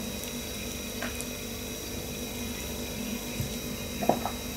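Tea being sipped from a mug, with a few faint short sounds of the sips and of the mug being handled, the clearest near the end. A steady low hum runs underneath.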